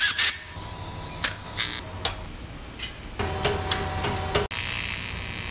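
Aluminium bike-frame tubes clinking and knocking as they are handled and fitted into a steel welding jig: a handful of sharp clicks in the first two seconds. A steady hum follows around the middle and stops abruptly, giving way to an even hiss near the end.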